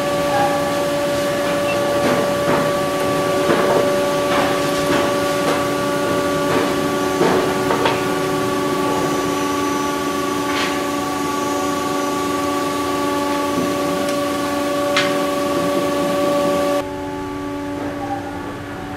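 A steady held chord of several sustained tones, changing about 17 seconds in, with scattered sharp knocks and taps over the first half from thin aluminium wing skin and a wooden board being handled against the wing.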